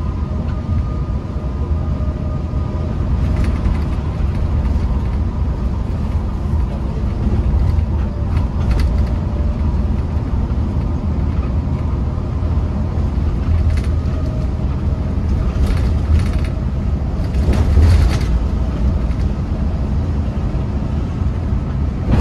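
Cabin noise inside an intercity bus at highway speed: a steady low rumble of engine and tyres with a faint steady whine. A few brief rattles or knocks cut through, the loudest about eighteen seconds in.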